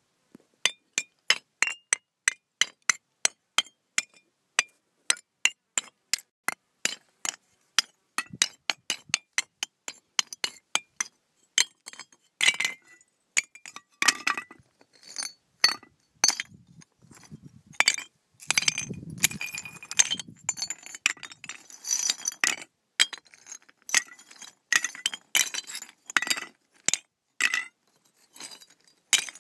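Sharp metallic clinks with a bright ring, evenly spaced at about two or three a second at first, then coming faster and irregularly from about twelve seconds in.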